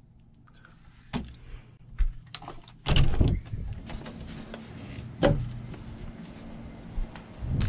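A door being opened and handled: a series of clicks and knocks, the loudest about three seconds in, over a low steady hum.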